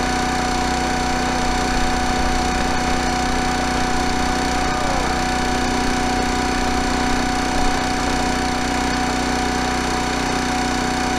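Small gasoline engine of a RuggedMade RS322 log splitter running at a steady speed, warming up after a cold start in sub-freezing weather.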